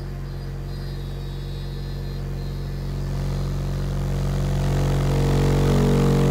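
An 18-inch Fi BTL "UFO" subwoofer playing a steady low test tone from a signal generator in free air: a low hum with buzzy overtones that grows steadily louder and is loudest near the end.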